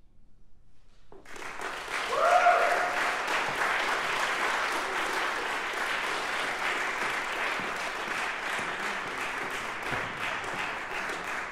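Brief silence, then audience applause breaks out about a second in and continues steadily, with a short cheer about two seconds in.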